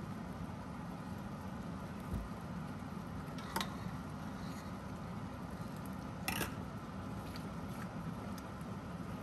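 Steady low kitchen hum with a few sharp clinks of a utensil on cookware. The two loudest come about three and a half and six seconds in.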